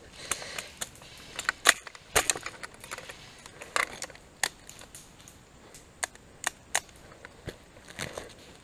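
Scattered single sharp cracks of airsoft gunfire during a woodland game, about a dozen at irregular intervals, the loudest two a little under two seconds in.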